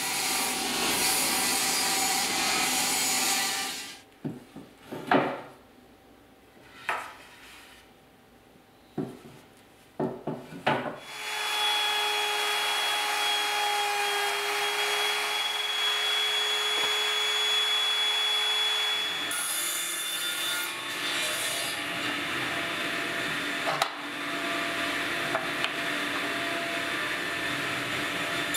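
Woodworking machines cutting timber. Machine cutting noise at first, then a few seconds of scattered knocks of wood pieces being handled. From about eleven seconds in a machine runs steadily with a held hum, and sawing follows near the end.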